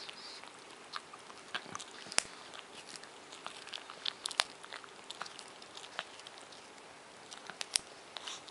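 Japanese Chin gnawing and licking a chew bone: irregular sharp clicks and crunches of teeth on the bone, the loudest about two seconds in, around four seconds, and near the end.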